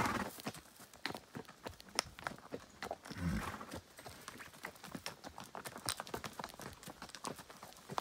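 Horse's hooves clopping on a trail at a walk, several irregular strikes a second, with a brief louder burst of noise about three seconds in.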